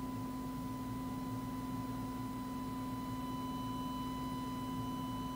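A steady high-pitched sine test tone with a low steady hum beneath it. A faint higher overtone joins the tone about two and a half seconds in, as the Realistic MPA-100 amplifier is turned up into distortion.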